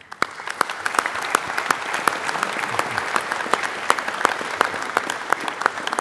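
Applause from many people clapping together, starting abruptly and holding steady.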